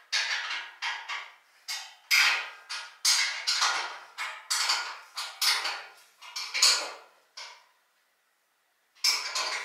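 Wrench turning the M8 bolts that fasten the metal band saw to its stand: a run of short metallic rasping strokes, about one or two a second, with a pause near the end before one more stroke.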